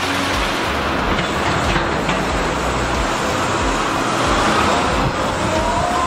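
Sennebogen 870 E-Series material handler at work, its machinery making a dense, steady rumbling noise as the clamshell grab is swung over a dump truck trailer. Near the end a whine rises and falls in pitch as the boom moves.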